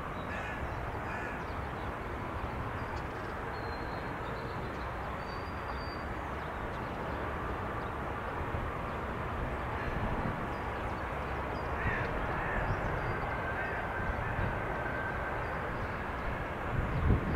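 Distant jet airliner noise: a steady rumble and hiss that swells slightly midway, with a few faint high bird calls.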